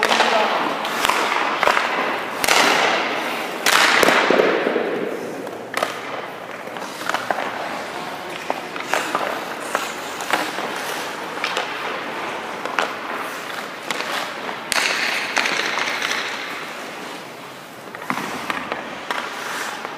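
Hockey skate blades scraping and carving across rink ice in hard pushes and stops, with scattered sharp knocks of sticks, pucks and goalie pads.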